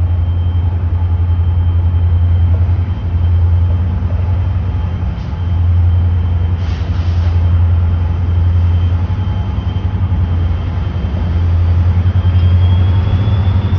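BNSF freight train running by: a steady low rumble with a thin, faint high whine over it.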